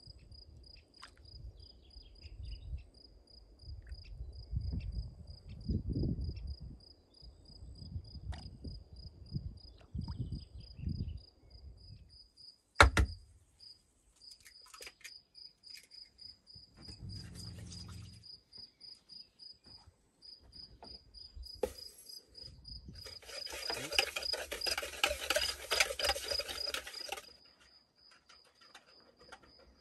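An insect chirping steadily in a quick, even, high-pitched pulse, several chirps a second. A single sharp knock about halfway through, and a few seconds of rustling, hissing noise near the end.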